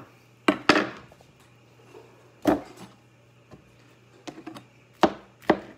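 Kitchen knife chopping on a cutting board: sharp knocks at irregular intervals, a pair near the start, one in the middle, a few light taps and then a pair near the end. A low steady hum runs beneath.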